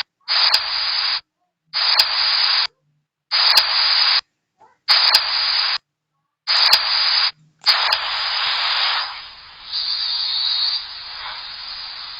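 Loud recording hiss chopped into roughly one-second pieces with dead silence between them, each piece starting with a sharp click. From about eight seconds in the hiss runs on unbroken.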